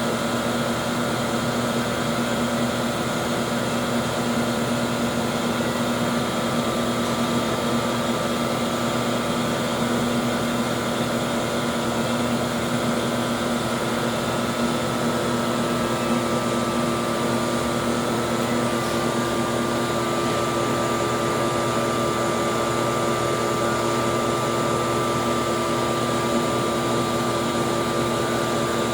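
Glassworking burner flame running steadily, a constant rushing noise with a faint steady hum through it. Its gas mixture is set lean, as needed for working lead glass.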